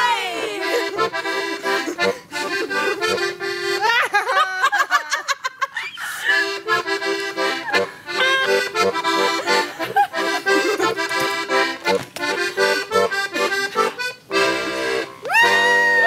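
Diatonic button accordion playing a lively traditional folk tune in steady chords as an instrumental ending, with brief sliding vocal whoops about four seconds in and again near the end.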